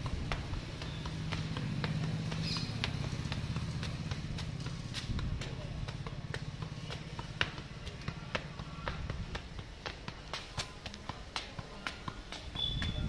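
A football being juggled on foot: repeated light taps of the ball against the shoe at an uneven pace, roughly one or two a second, over a low steady hum.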